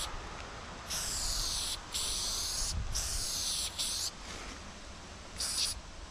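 Aerosol spray-paint can spraying onto a concrete wall in repeated strokes of about a second each, with short breaks between them and a brief burst near the end.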